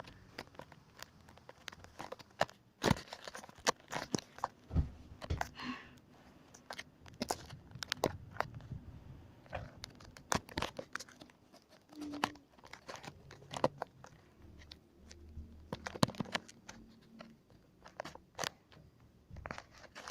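Irregular sharp clicks, crackles and rustling, with no steady hum.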